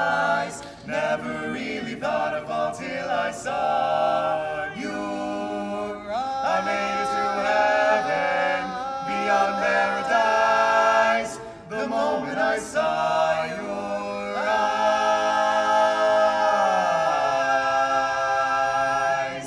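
Barbershop quartet of four male voices singing a cappella in close harmony, finishing the song on a long held chord in which the lowest voice slides down before the chord cuts off just before the end.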